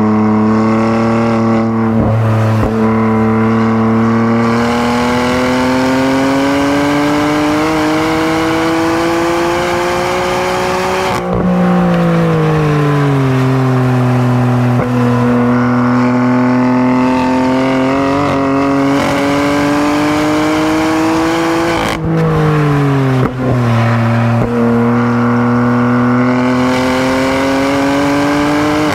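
BMW F80 M3's twin-turbo inline-six under hard acceleration on a race track, its pitch climbing slowly and steadily. The note falls away sharply about a third of the way in, and again about three quarters through with gear changes, then climbs again.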